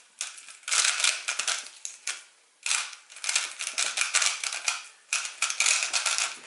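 GAN 356 i smart 3x3 speedcube being turned fast by hand during a timed solve: rapid plastic clicking and clacking of the layers, in quick bursts broken by short pauses.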